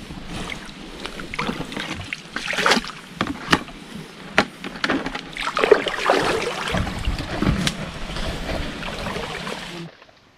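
Shallow muddy water splashing and sloshing close by, with scattered knocks and rustles of hands handling the catch and a container; it cuts off abruptly just before the end.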